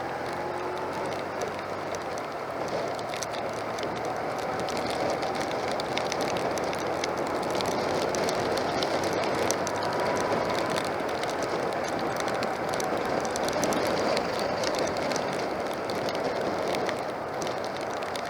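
Motorcycle riding through heavy rain: a steady rush of wind and tyre spray, with the engine's pitch faintly rising and falling and scattered ticks of rain striking the camera.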